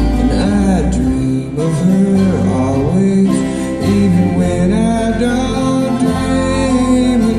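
Bluegrass string band playing live: acoustic guitar and other plucked strings over a steady bass, with a melody line that slides up and down.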